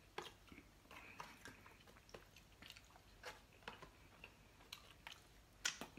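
Faint close-up chewing of broccoli: irregular soft wet clicks and light crunches, about two a second.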